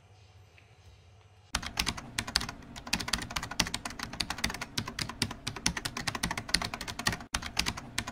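Faint room tone, then about a second and a half in, rapid irregular clicking like fast typing on a computer keyboard, dense and steady with a brief break near the end.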